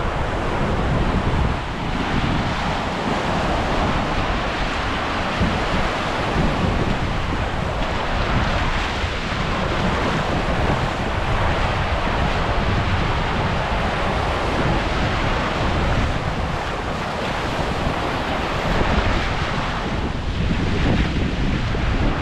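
Surf washing on a sandy beach, with wind buffeting the microphone and rumbling low down throughout.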